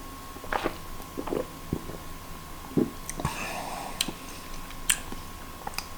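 Soft, scattered mouth clicks and smacks of someone tasting beer, with a short breathy rush a little past three seconds in. A faint steady high tone runs underneath.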